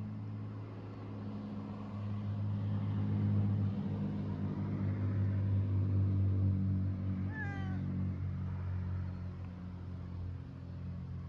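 A cat meows once, briefly, with a slight fall in pitch, about seven and a half seconds in. A steady low hum runs underneath.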